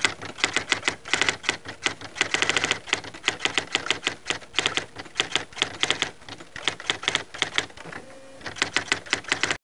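Typewriter sound effect: rapid runs of key strikes in bursts, with short pauses between the runs.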